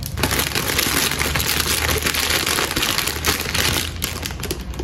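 Clear plastic packaging bag crinkling and rustling as it is handled, a dense run of crackles throughout.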